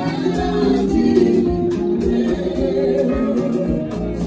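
Live band playing slow highlife gospel music: Yamaha MODX keyboard, electric guitar, bass guitar and a drum kit with regular cymbal strikes, with a voice singing over it.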